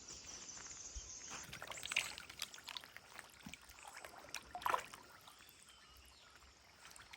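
Water splashing and trickling at a fish pond, in irregular small splashes, with a steady high insect drone for the first second or so.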